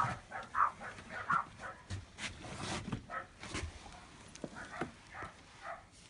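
A dog making short, soft noises close to a cat, in quick runs, with a few light knocks.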